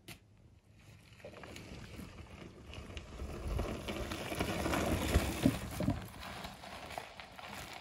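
Mountain bike tyres rolling over sandstone and loose gravel as the bike passes close by, swelling to a peak about five seconds in with a few knocks as it crosses rough rock, then fading as it rides away.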